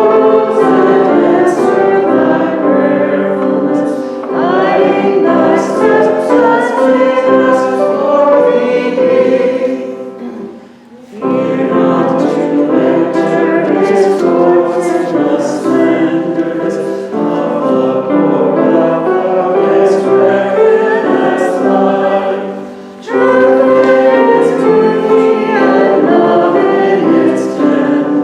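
A choir singing slow, held chords in phrases, with short breaks about ten and twenty-three seconds in.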